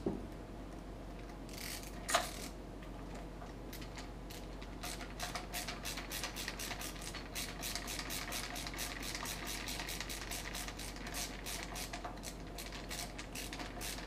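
Hand screwdriver ratcheting while it drives the through-screws that clamp the two halves of a deadbolt together: a single knock early, then from about five seconds in a run of quick, even clicks, about five a second.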